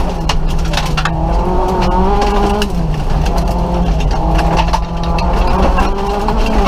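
Nissan Micra rally car's engine under hard acceleration, heard from inside the stripped cabin. Its pitch dips and climbs again twice, as at gear changes, over a rattle of sharp clicks and knocks from loose stones striking the underbody.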